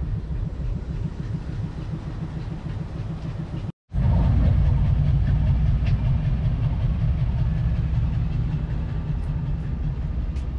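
Diesel locomotive of a passenger train running at close range: a steady low rumble, with a brief dropout just before four seconds in, after which it is louder.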